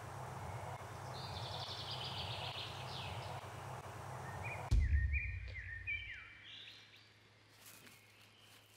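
Outdoor ambience: a steady rushing noise with a bird trilling. About five seconds in a low thump cuts in, after which the noise drops away and birds give several short chirps.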